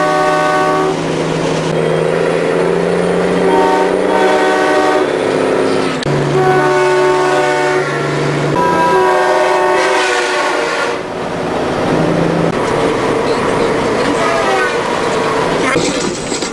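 Truck-mounted train horn blown in a series of long blasts, each a loud chord of several steady tones. A few notes slide in pitch partway through.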